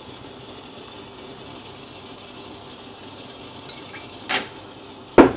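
Steady low hiss of a steamer pot simmering on the stove. Near the end comes a short scrape, then a sharp knock of kitchenware, the loudest sound.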